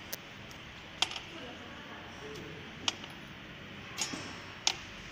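Small glass vials clinking as they are set down on, and knock against each other on, a stainless-steel bottle turntable: about five sharp, separate clinks over a steady background noise.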